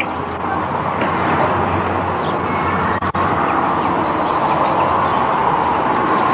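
Steady rushing outdoor background noise with a few faint bird chirps in the middle.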